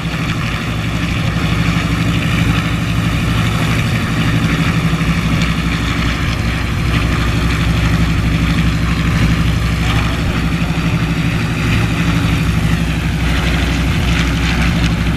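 Shvetsov ASh-82T fourteen-cylinder twin-row radial engine of an Ilyushin Il-14T running steadily on the ground, propeller turning.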